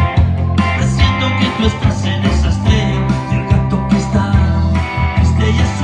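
Electric guitar, a Stratocaster-style solid-body, playing an instrumental passage of a pop ballad over a backing with a strong, steady bass line.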